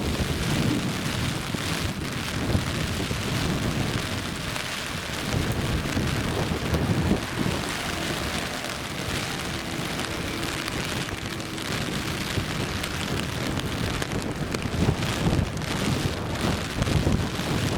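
Steady rain falling and splashing, with an uneven low rumble underneath.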